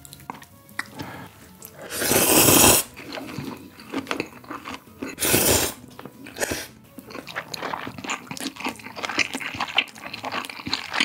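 A person slurping spicy mixed instant noodles in two loud drawn-in slurps, about two and five seconds in, then chewing with many small wet clicks.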